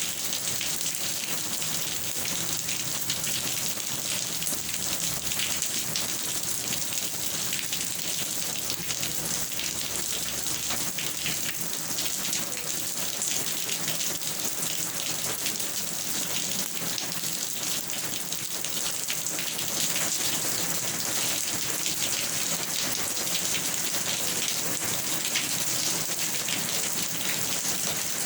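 Steady rain falling, a dense even hiss of many fine drops, a little louder about two-thirds of the way through.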